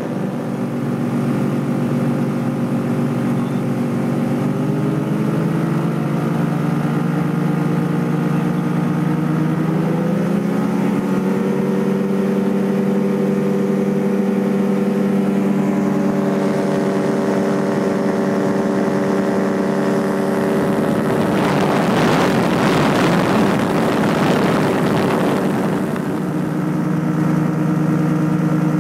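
Aliferrari Tucano ultralight's propeller engine droning, heard from the cockpit. Its pitch rises over several seconds as it is throttled up, then holds steady. A loud rushing hiss joins in for a few seconds past the middle, and the engine note drops a little near the end.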